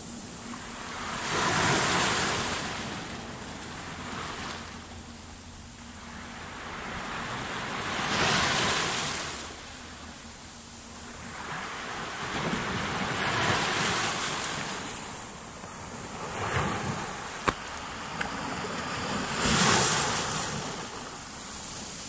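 Small Mediterranean waves breaking and washing in over a shallow sand-and-pebble shore, the surf swelling and falling away every few seconds. A single sharp click comes about two-thirds of the way through.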